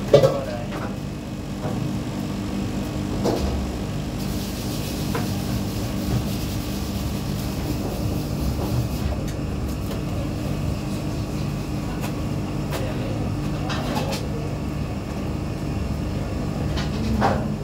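Steady low machine hum with a few scattered knocks and clatters, typical of a working restaurant kitchen.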